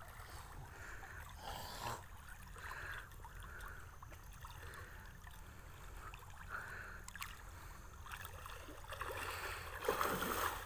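Water swishing and sloshing as bamboo-framed push nets are swept through waist-deep river water by wading fishermen. The swishes repeat softly, with a louder one near the end.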